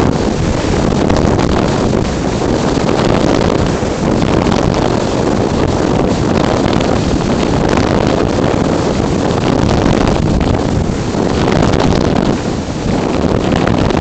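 Wind noise from airflow rushing over the microphone of a camera mounted on a flying RC slope glider: a loud, steady rush that surges and eases a little, dipping briefly near the end.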